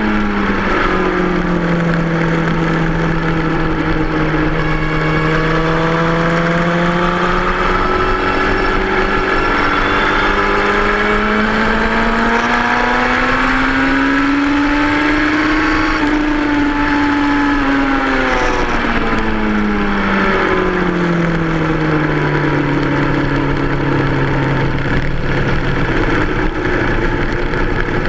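2003 Yamaha R1's inline-four engine running hard on a racetrack. Its pitch drops early on, holds low, climbs slowly to a high peak around the middle, falls back, and starts to rise again near the end.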